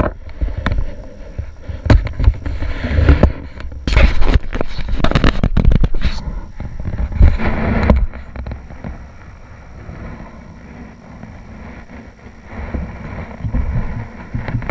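Hollow knocks and clatter of a paddle and gear against plastic kayak hulls, with a dense run of sharp clacks about four seconds in lasting a couple of seconds. It then settles to quieter handling noise over a low rumble.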